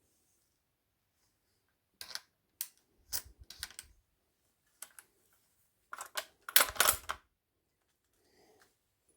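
Irregular sharp clicks and clattering knocks in two clusters, about two seconds in and about six seconds in, the second the loudest and with a dull thud beneath it.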